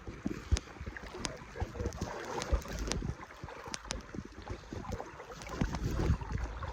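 Stream water sloshing, with scattered sharp clicks and low knocks over it.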